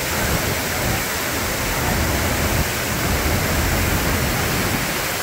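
Gljúfrabúi waterfall pouring into its plunge pool at close range: a loud, steady, dense rush of falling water.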